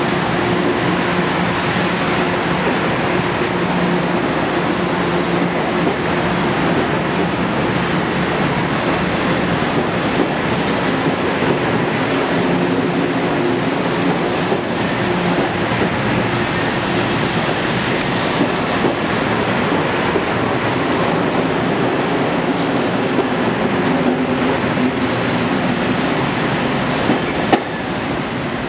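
Budd M3 electric multiple-unit train running through a station, with a steady rushing noise and a low hum from its equipment. Its cars go by and the rear car passes near the end as it pulls out.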